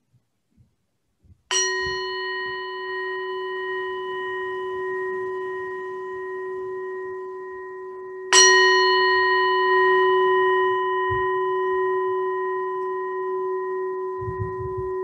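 A meditation bell struck twice, about seven seconds apart. Each stroke rings on with a deep steady tone and several higher ones that fade slowly, the second stroke louder than the first.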